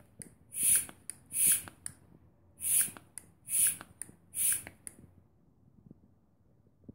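Mityvac hand vacuum pump being stroked, each squeeze giving a short hiss of air with a small click, five strokes about a second apart that stop about five seconds in, drawing a vacuum on a two-stroke engine cylinder for a leak test.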